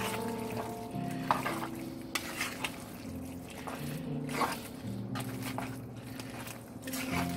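A spatula stirring thick, creamy pasta and meatballs in a frying pan, with a few soft scrapes and knocks against the pan, over background music with held notes.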